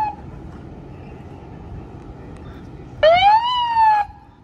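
Emergency vehicle's electronic siren giving short whoops of about a second, each rising and then easing slightly down in pitch: the tail of one right at the start and a full one about three seconds in, over a low steady rumble.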